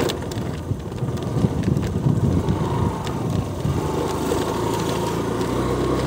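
Wind rumbling on the microphone. About four seconds in, a steady low engine hum sets in, like an engine idling.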